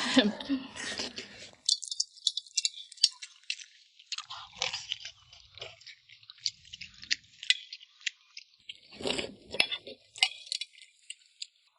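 A person chewing food close to the microphone, with a dense run of small crisp mouth clicks and crunches.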